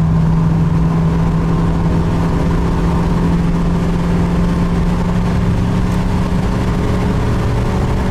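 1968 Dodge Charger R/T's 440 V8 running at a steady engine speed, a constant drone with road rumble, heard from inside the cabin.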